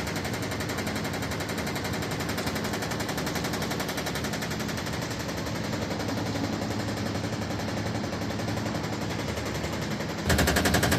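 Haier portable fully automatic washing machine running with a fast, continuous knocking rattle that gets louder about ten seconds in: the sign of a faulty damping spring in the drum's suspension.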